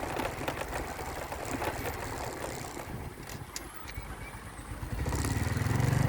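Vehicle engine and road noise, with a loud, low engine sound swelling up about five seconds in as a motor revs or comes close.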